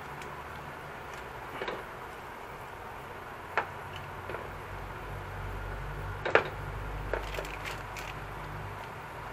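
Onion, tomato and chili simmering in oil and mackerel broth in a nonstick frying pan: a steady hiss with scattered sharp pops and clicks, the loudest about six seconds in.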